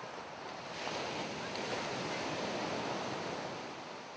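Ocean surf breaking on a sandy beach: the wash swells about a second in, holds, then slowly fades away.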